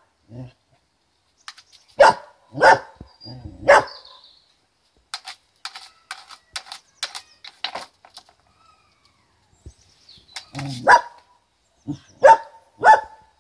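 English Setter barking at a hand brush lying in a dustpan: three sharp barks about two seconds in, then a run of light clicks, then three more barks near the end.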